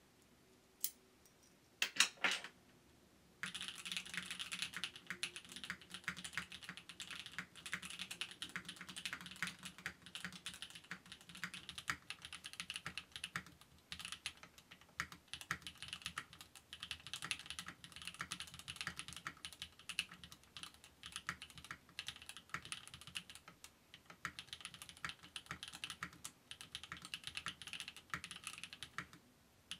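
Fast, continuous typing on a Mode Sonnet 75% mechanical keyboard fitted with Gateron Cream Soda switches and TX stabilizers. One click comes about a second in and a short cluster of louder clicks at about two seconds, then steady rapid typing starts about three and a half seconds in and runs until just before the end.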